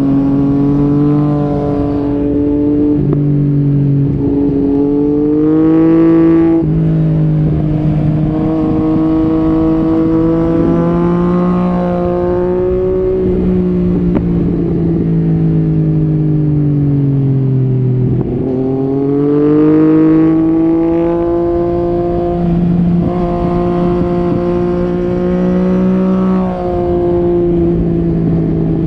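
Yamaha MT-09 SP's 847 cc inline-three engine through an Akrapovic Carbon Racing exhaust, heard from the moving bike. The revs climb and drop sharply at upshifts around six seconds in, fall away over several seconds in the middle as it slows, then climb again as it pulls out.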